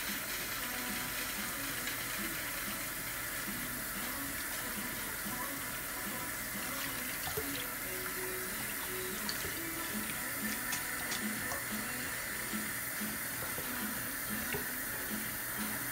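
Kitchen faucet running a thin, steady stream into a stainless-steel sink, splashing on a plate, with a few small splashes as a cockatiel bathes under it and flaps its wet wings.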